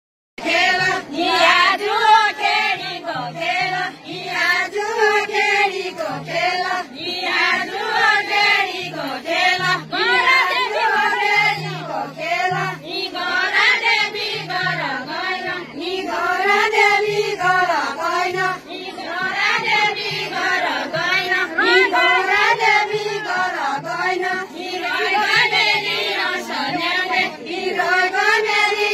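A group of women singing a folk song together in chorus, in short phrases that rise and fall and repeat over and over.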